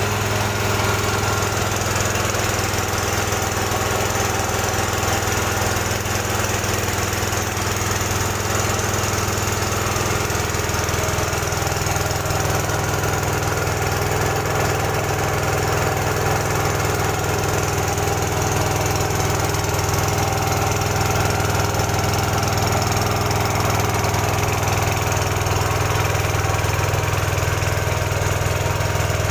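Air compressor running steadily, a constant motor hum with no starts or stops.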